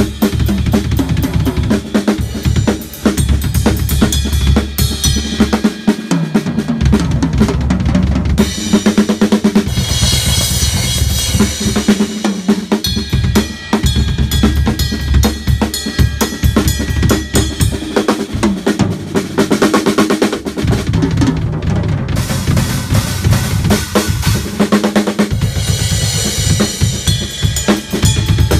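Acoustic drum kit played in a continuous groove with kick drum, snare and cymbals. The bright ring of the cymbals swells about nine seconds in and again near the end.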